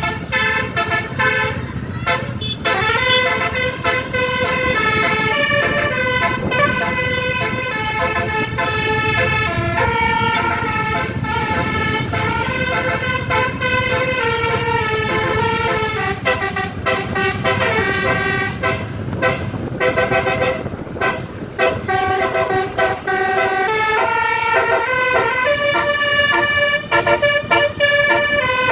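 Tour bus's telolet horn, a set of multi-tone air horns, playing a tune of held notes that step up and down in pitch, over the bus's engine and road noise.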